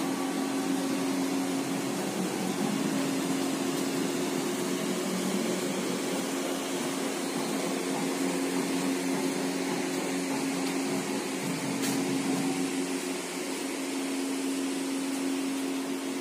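A steady mechanical hum with a constant low drone and a hiss over it.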